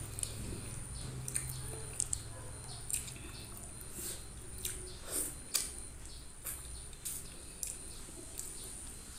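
Eating by hand: wet, sticky clicks and squishes of fingers pulling meat off a sauced fish head and working it into rice, with mouth sounds of chewing. The clicks come one at a time, a dozen or so, at irregular moments.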